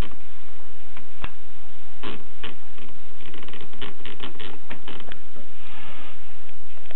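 Keys of a Continental typewriter striking: a few separate clacks at first, then quicker runs of typing, with a short rasping stretch about three-quarters of the way through.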